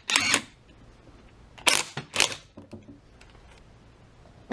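Three short clatters of metal parts and tools being handled: one at the start, then two more close together about a second and a half later.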